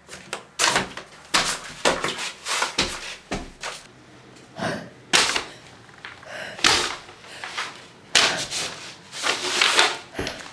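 Footsteps of someone in flip-flops climbing carpeted stairs: a string of irregular slaps and thuds, one or two a second.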